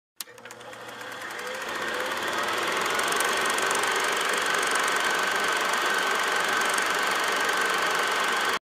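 Film projector sound effect: a steady mechanical whir with fast, even clicking, fading in over the first two seconds and cutting off suddenly near the end.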